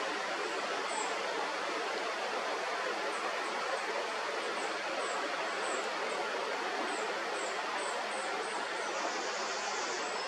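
Steady rushing outdoor background noise, with short, high, falling chirps repeating every half second to a second.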